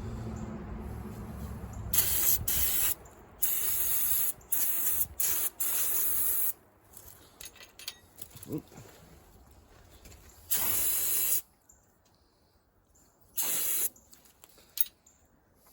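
Short bursts of pressurised spray hissing, about seven in all: a quick run of squirts over the first few seconds, then two more spaced out near the end, used to clean oily sludge off engine parts.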